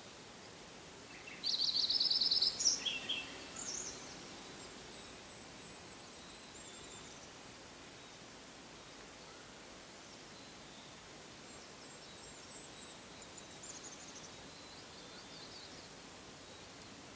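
A songbird sings a rapid high trill about a second and a half in, followed by a few slurred notes; after that only faint, distant high bird calls over a steady background hiss.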